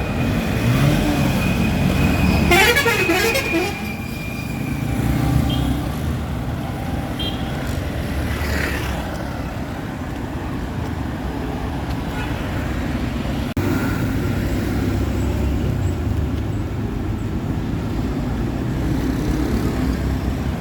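Town street traffic: vehicle engines running past, with a vehicle horn sounding about two and a half seconds in.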